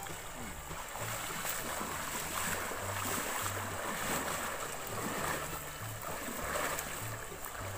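Shallow river water splashing and sloshing steadily around a man's legs as he wades, with some wind buffeting the microphone.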